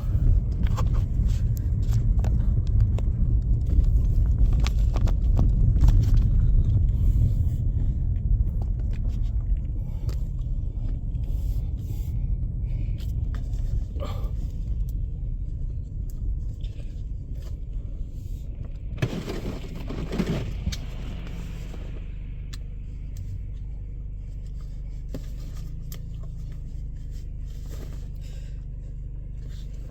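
Car driving over snow: a low rumble of engine and tyres, loudest at first and then easing to a steadier hum, with a brief rushing noise about two-thirds of the way through.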